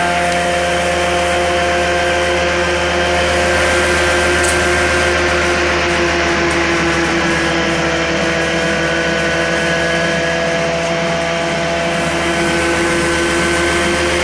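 Prochem Performer truck-mount carpet cleaning machine running steadily on its Nissan engine, with the vacuum blower and water pump working: a constant loud drone with a steady whine over a rushing noise.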